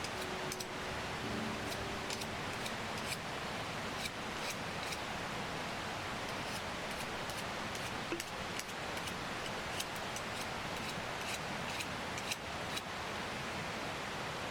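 Wood campfire burning: irregular sharp crackles and pops over a steady hiss.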